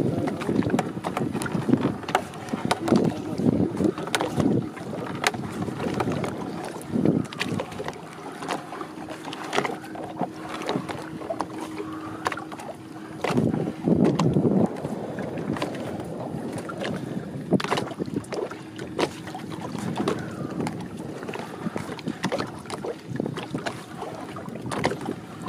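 Wind buffeting the microphone and water slapping against the hull of a small open fishing boat, with scattered knocks and clatter as a fisherman hauls a rope in over the side by hand. A faint steady hum comes and goes in the background.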